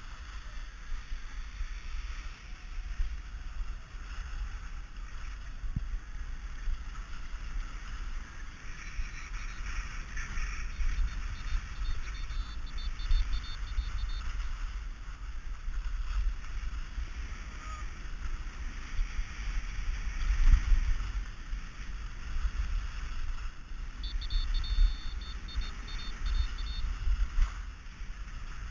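Skis running and scraping over packed snow on a downhill run, with wind buffeting the action camera's microphone as an uneven low rumble.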